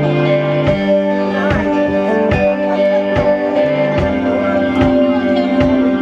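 Live rock band playing an instrumental stretch: electric guitar and bass holding notes over drums keeping a steady beat.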